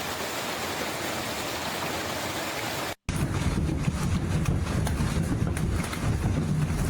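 Storm audio: a steady hiss of heavy rain and hail, then, after a brief cut about three seconds in, a deeper rumbling noise with scattered sharp ticks of hailstones striking.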